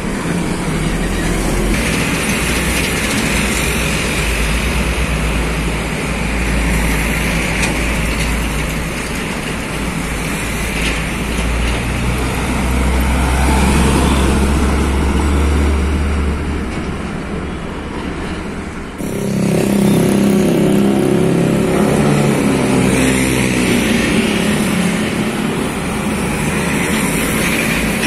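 Heavy diesel trucks driving past close by, engine and tyre noise loudest as a container truck goes by near the middle. About two-thirds through the sound changes abruptly to a truck engine running with a clear, steady note.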